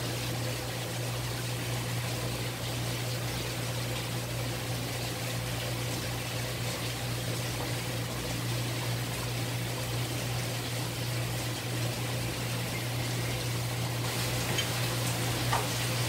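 Steady running, trickling water over a constant low pump hum, the water circulation of a live-fish tank.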